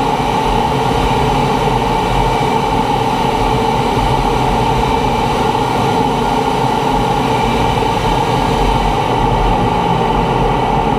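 T-45 Goshawk jet trainer in flight: the steady noise of its Adour turbofan and the rushing air, with a constant whine over it.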